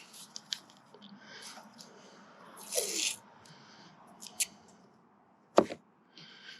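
Quiet handling of a vinyl decal's transfer tape and backing: scattered soft clicks, a short papery rustle about three seconds in, and one sharp click near the end.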